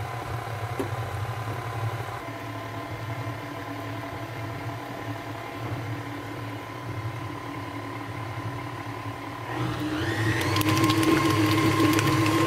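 KitchenAid Artisan stand mixer running on low, its flat beater turning dough in the steel bowl with a steady motor hum. About ten seconds in it is switched up to a higher speed, and the motor grows louder with a rising whine.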